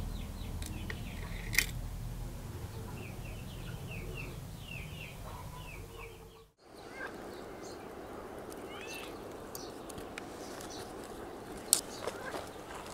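Outdoor ambience with small birds chirping in short repeated calls and a single light click about one and a half seconds in. About halfway through the sound cuts to a steadier outdoor hiss with a few more bird calls and a sharp click near the end.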